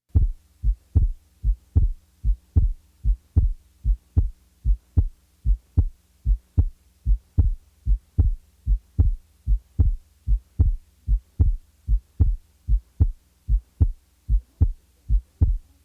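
Heart sounds heard through a stethoscope: steady lub-dub beats at just over one a second, over a faint steady hum. This is a normal heart with normal respiratory variation, the second sound splitting physiologically on inspiration.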